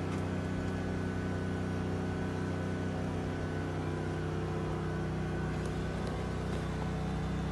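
An engine running steadily at an even pitch, with no rise or fall in speed.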